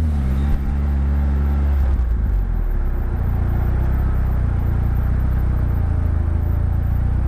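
Westfield SEiW kit car's engine running: its note eases down over the first couple of seconds, then settles into a steady low rumble.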